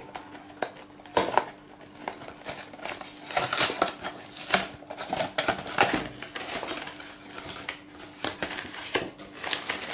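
Small cardboard model-kit box opened by hand: the card flap scraped and torn open, then irregular rustling and clicks as the plastic-bagged parts are slid out.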